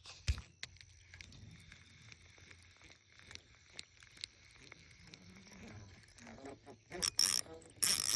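Insects chirring steadily in the background, with scattered small clicks and handling noises, and two loud, noisy bursts near the end.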